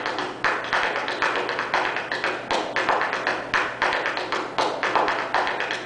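Tap dancing: the metal tap plates on the soles of tap shoes striking a stage floor in a fast, continuous run of taps.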